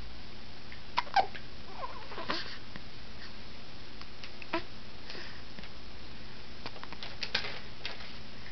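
A baby hiccuping: about five short, sharp little sounds spaced irregularly a second or more apart.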